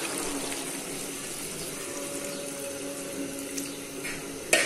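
A little water poured into a metal pot of chicken curry, splashing into the gravy. A single sharp knock near the end.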